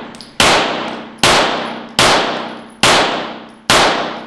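9mm pistol shots from a Glock 43 frame wearing a Glock 48 slide: five rapid shots a little under a second apart, each echoing and ringing out in an indoor range.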